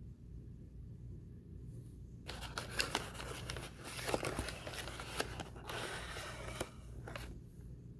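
Paper inner bag of an Argo laundry starch box rustling and crinkling as a hand and spoon dig into it, for about five seconds starting a couple of seconds in, with many small sharp clicks. A low steady hum lies under it.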